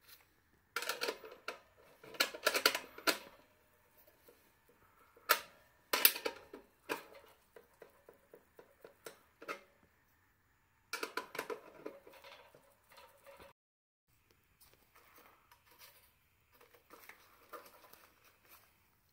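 Steel ring spanner clinking and scraping on a nut on the gas burner's sheet-metal front plate as it is worked and repositioned, in irregular bursts of rattling metal clicks with pauses, fainter near the end.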